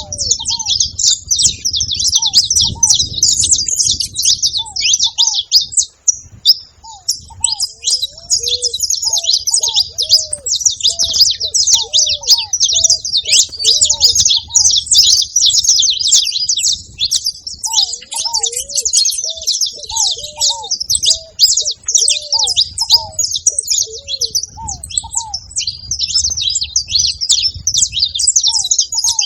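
Several saffron finches singing together in a dense, continuous stream of high twittering chatter. A series of short, lower call notes repeats underneath.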